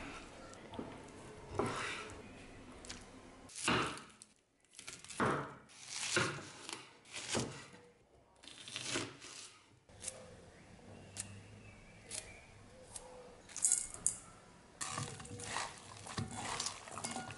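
Long dagger blade cutting raw pork and then onion on a wooden cutting board, in a series of separate cuts with sharp knocks and cracks. Near the end, hands toss meat and onion slices in an enamel bowl with light clinks.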